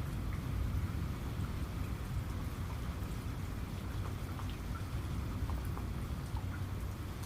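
Steady rain, with a deep continuous rumble underneath and many small scattered drop ticks on top.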